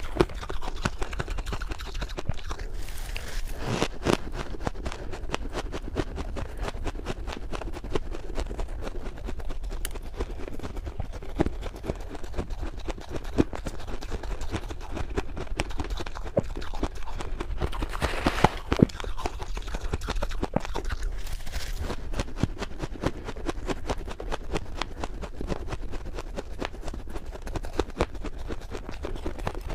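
Close-up crunching and squeaking of fluffy freezer frost being chewed: a dense, continuous run of crisp little crackles.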